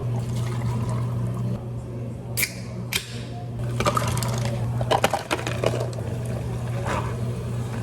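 Drink preparation at a cafe counter: liquid pouring, with a few sharp clinks and knocks, over a steady low hum.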